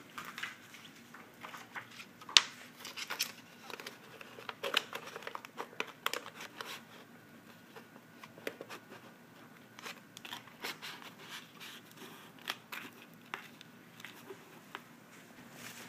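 Thin alignment shims being handled and pushed into the voice-coil gap of a subwoofer during a recone, making light crinkling and scattered clicks. The sharpest click comes about two and a half seconds in.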